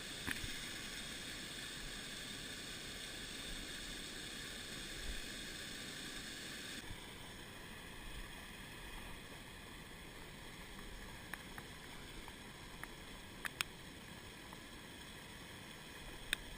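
Steady outdoor hiss of creek-side ambience, dropping slightly about seven seconds in, with a few faint clicks near the end.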